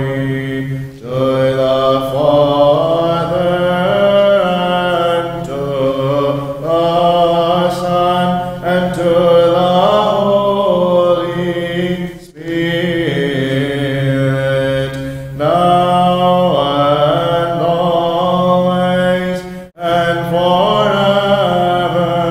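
Byzantine liturgical chant sung by male voices at Vespers: a moving melody over a steady low held note (an ison drone). It breaks off briefly for breath about a second in, about twelve seconds in, and near twenty seconds in.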